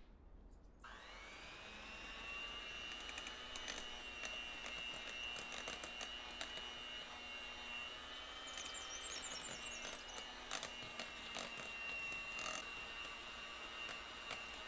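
Electric mixer beating pound cake batter. It starts about a second in, its whine climbing to speed and then running steadily, with the beaters clicking against the bowl.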